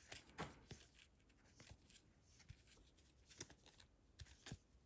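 Faint scattered clicks and taps of trading cards being handled and flipped through one at a time, a few light ticks a second.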